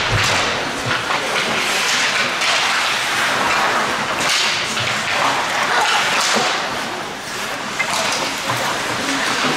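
Ice hockey play: skate blades scraping and carving on the ice every couple of seconds, with sticks and puck clattering and one sharp crack near the end.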